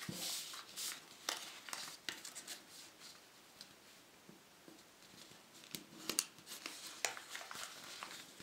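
A sheet of paper rustling and scraping under fingertips as a fold is pressed flat. It comes in short soft bursts, with a quieter stretch in the middle.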